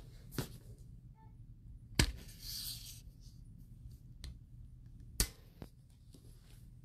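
Handling noise from a phone held close to its microphone: a few sharp knocks, the loudest about two seconds in and about five seconds in, the first followed by a brief rustle.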